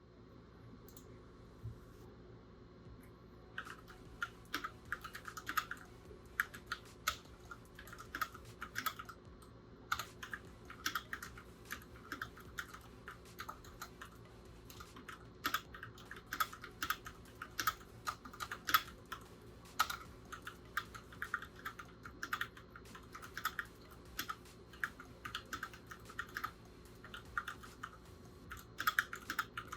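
Keychron K6 65% wireless mechanical keyboard with Keychron Red linear switches being typed on: an irregular run of keystroke clacks that starts about three and a half seconds in.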